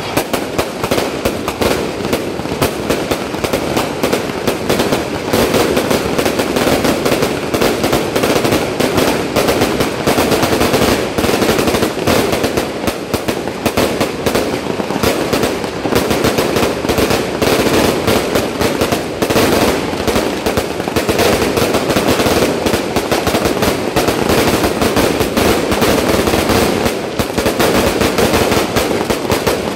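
Fireworks barrage going off without a break: a dense, unbroken run of rapid bangs and crackles.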